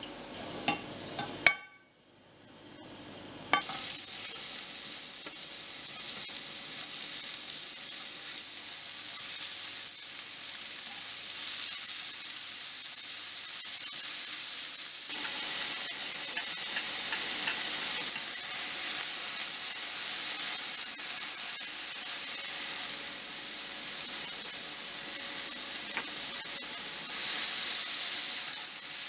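Sliced red and yellow bell peppers, later joined by dried sardines, sizzling in sesame oil in a frying pan as they are stirred with chopsticks. A steady frying hiss sets in after a few clicks and a short hush, then grows a little louder about halfway through.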